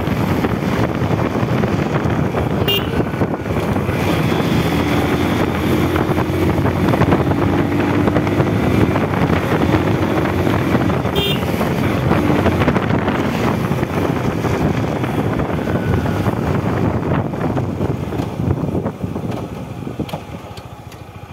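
Motorcycle riding along a road, its engine running under heavy wind rush on the microphone. The sound eases off near the end as the bike slows.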